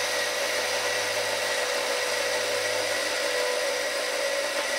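Razor E100 scooter's 24-volt brushed DC motor running steadily with no load, driving the chain, fed straight from a bench supply. It runs extremely weak because the supply is limiting the current to 1 amp.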